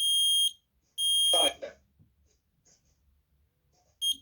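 Kidde i12010SCO combination smoke and carbon monoxide alarm in test mode. Its piezo horn sounds the last two long, high beeps of the three-beep fire pattern, about a second apart, with a short burst of the alarm's recorded voice over the second beep. After a pause, the quick beeps of the carbon monoxide pattern begin near the end.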